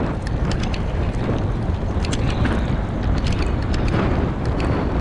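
Wind rushing over a handlebar-mounted camera's microphone as a bike rolls along a dirt trail, with tyre noise and scattered small clicks and rattles.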